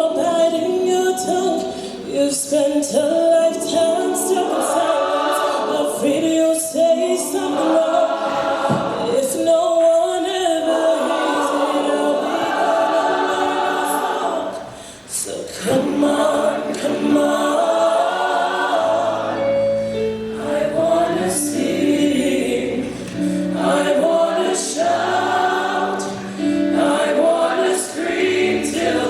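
High school show choir singing in multi-part harmony, with instrumental accompaniment. A low sustained bass line comes in about two-thirds of the way through.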